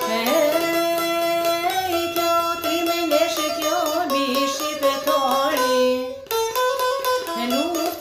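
A woman singing a folk song in a wavering, ornamented line over the rapid plucked strumming of a çifteli, the two-stringed Albanian long-necked lute. Voice and strings break off briefly about six seconds in, then resume.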